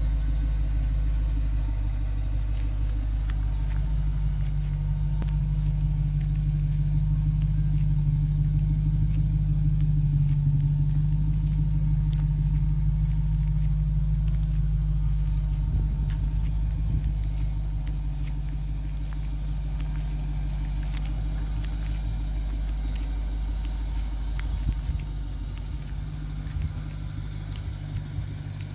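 Lexus SC430's 4.3-litre V8 idling steadily, a low even hum that holds its pitch with no revving.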